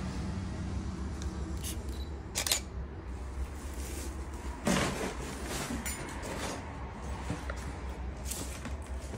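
Handling noise from a handheld phone being moved about: a steady low rumble with several brief scuffs and rustles, the strongest about five seconds in.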